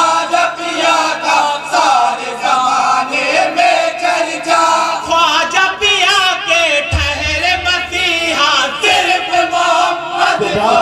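Group of men singing an Urdu devotional praise poem (manqabat) together in chorus, several voices with wavering, melismatic melodic lines.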